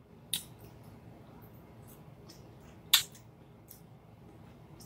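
Eating sounds: a few short, sharp clicks, the loudest about a third of a second in and about three seconds in, over faint chewing of shrimp and broccoli in garlic sauce.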